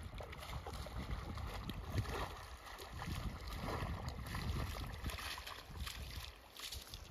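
Footsteps wading and splashing through ankle-deep river water, an irregular slosh with each step.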